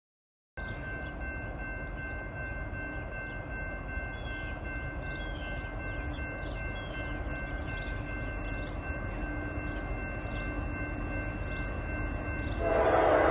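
Approaching Norfolk Southern freight train: a diesel locomotive's horn chord sounding steadily in the distance over a low rumble, getting much louder near the end. Birds chirp faintly in the background.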